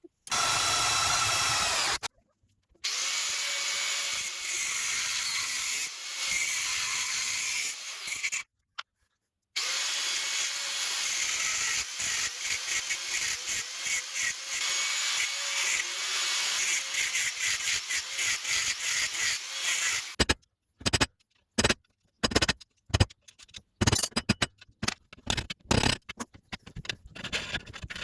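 A power tool running with a steady whine and a loud hiss, broken off twice. Near the end it turns into short, choppy bursts.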